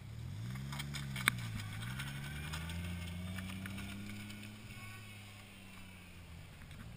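Nissan 240SX engine revving up and down as the car drifts past, then holding its revs and fading as the car pulls away. One sharp click about a second in.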